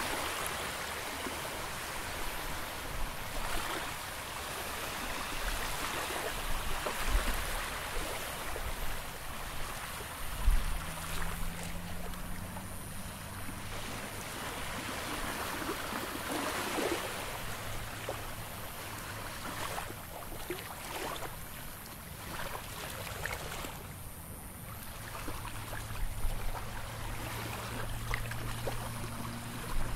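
Small waves washing and lapping on the shore, swelling and fading every few seconds. A low steady hum comes in about a third of the way through.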